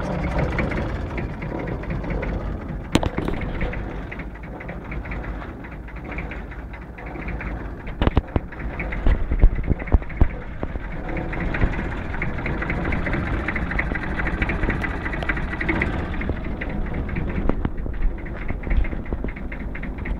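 Aveling-Barford road roller's diesel engine running steadily at idle, with a few sharp knocks about eight to ten seconds in.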